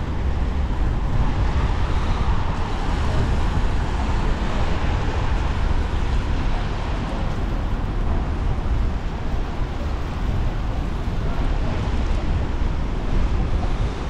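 Steady city street traffic on wet roads, cars and buses passing, with a deep rumble underneath.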